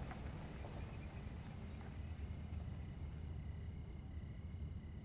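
Crickets chirping in a steady, even rhythm of several chirps a second, over a low background hum.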